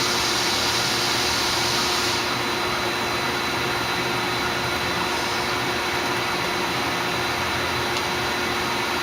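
Tsugami BS-20BII CNC Swiss lathe's sub spindle running, a steady whirring hum with a faint high whine. About two seconds in, the higher hiss drops away a little.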